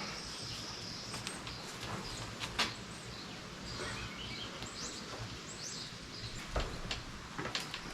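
Outdoor ambience with birds chirping now and then over a steady background, and a couple of sharp knocks.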